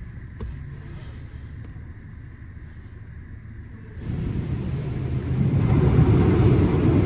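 LaserWash 360+ touchless automatic car wash running: a low rumble, then about four seconds in a sudden loud rush of noise that grows louder again a second and a half later.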